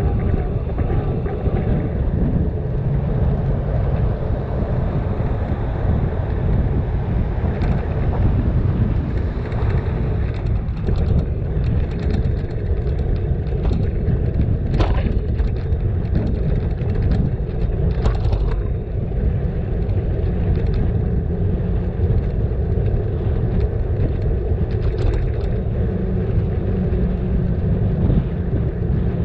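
Steady low rumble of wind on the microphone and tyres on the road from a bicycle being ridden, with a couple of short clicks about halfway through.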